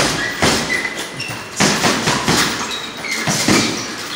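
A boxer in gloves throwing punches and moving his feet on a rubber gym floor: several short noisy bursts, roughly one a second.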